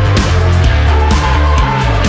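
Loud rock background music with distorted guitar, heavy bass and a steady drum beat.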